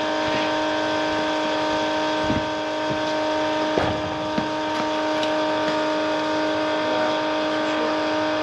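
Steady electric motor hum holding one constant pitch, with a few light knocks and clicks scattered through it.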